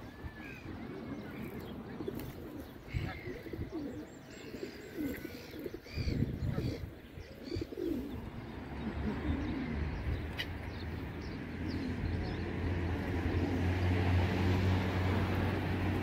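Feral pigeons cooing, with high chirping bird calls in the first few seconds. From about halfway a steady low drone builds and grows louder toward the end.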